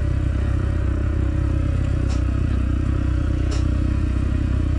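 Dirt bike engine running at low throttle, a steady low rumble, with two light clicks about two and three and a half seconds in.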